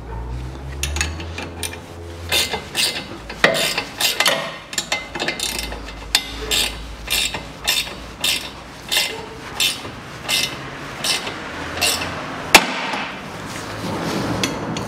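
Ratchet wrench clicking in short strokes, about two a second, as it turns the screw of a tie rod end puller. About two seconds before the end comes one loud sharp crack: the tie rod end's ball stud popping free of its taper in the steering knuckle.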